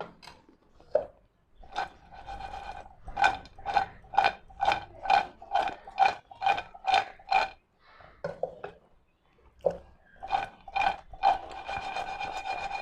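Spoon stirring and tossing crisp fried bread cubes in sugar syrup in a metal pan: a run of regular scraping strokes, about two a second, with the pan ringing at each stroke. After a short pause near the end come a few more strokes. The bread is being coated in the thickened syrup to make bread candy.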